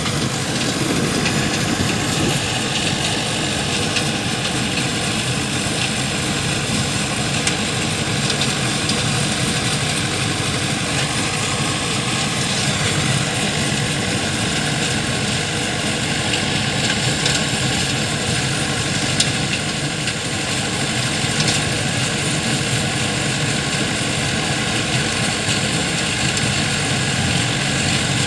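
Combine harvester running steadily under load, a continuous loud engine and machinery drone that does not change.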